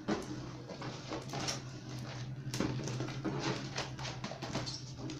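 Cardboard product boxes being picked up and moved by hand: irregular taps, knocks and scraping rustles, over a steady low hum.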